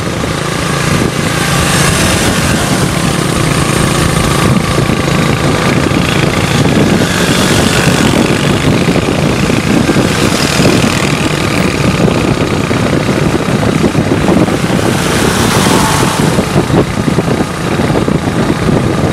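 Motorbike engines running steadily at road speed, mixed with heavy wind and road noise on a microphone moving along with the bikes; the wind swells a few times.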